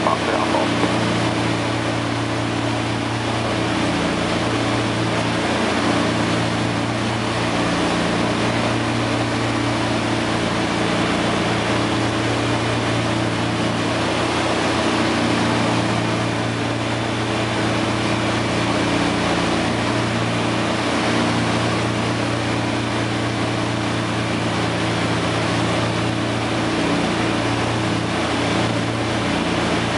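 Steady drone of a DC-3 Dakota's two radial piston engines and propellers, heard inside the flight deck during the landing approach.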